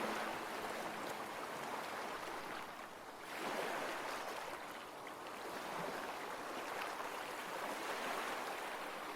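Gentle ocean waves washing on a shore in a steady surf wash, easing briefly about three seconds in and then swelling again.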